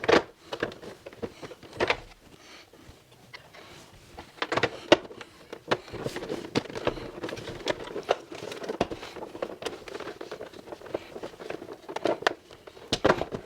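Irregular clicks and knocks of hard plastic parts being handled and fitted together as the casing of a Pentair Kreepy Krauly Racer pool cleaner is put back on, with soft rustling between.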